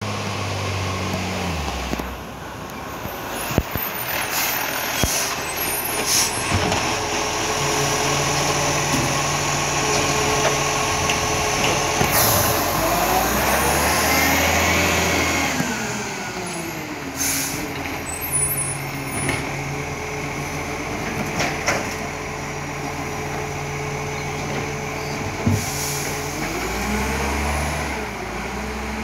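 Iveco ACCO side-loading garbage truck with a Superior Pak body: its diesel engine runs throughout, with several short sharp air-brake hisses. For a few seconds around the middle the engine revs up and back down while the truck stands at the bins, typical of the hydraulic bin-lift arm working.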